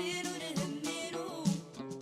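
Background music: a song with a singing voice over plucked guitar.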